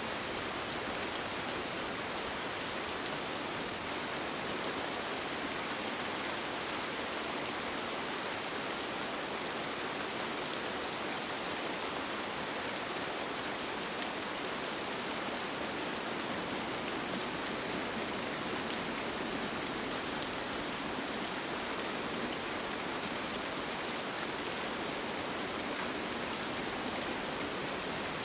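Steady rain falling on a tent, an even wash of rain noise dotted with fine individual drop ticks.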